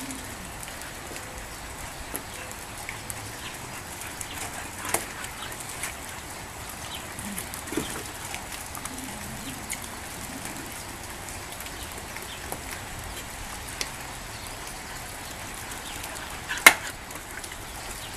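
Steady outdoor hiss with faint scattered clicks and one sharp snap near the end.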